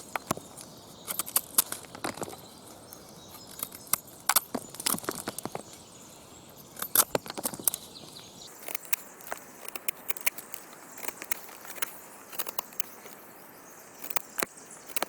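Pocket-knife blade with a partly wavy edge cutting into dry wood in repeated strokes: irregular clusters of sharp cracks and crackles as the fibres split, about every one to two seconds.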